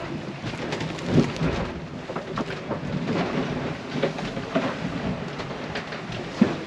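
Rumbling rush of water and wind on a sailboat's hull, heard from inside the cabin as the boat pitches through rough seas, with irregular knocks and rattles; a sharper knock about a second in and another near the end.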